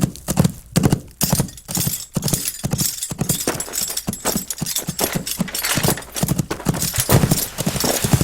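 Horse hooves clip-clopping in a steady rhythm, about two hoofbeats a second.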